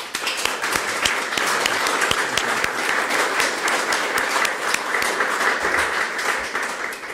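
Audience applauding: a dense spatter of hand claps that dies away near the end.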